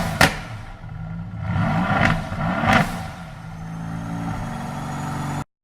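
Car engine revved in repeated blips, with sharp exhaust pops and crackles as the revs drop, then settling to a steady idle. The sound cuts off suddenly near the end.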